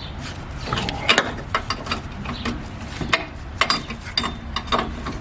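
Irregular metal clicks and clinks from a wrench working on the 13 mm strut tower bolts as they are broken loose.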